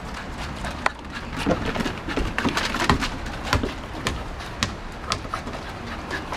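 A Scottish terrier dribbling a soccer ball across wooden deck boards: irregular clicks and knocks from her claws and the ball on the planks, busiest and loudest around the middle.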